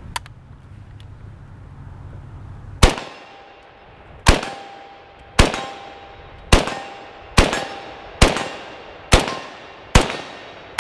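Yugoslavian M59/66 SKS semi-automatic rifle firing 7.62×39mm. Eight shots go off about a second apart, starting about three seconds in, each with a fading echo. The factory-new, unlubricated rifle cycles every round without a stoppage.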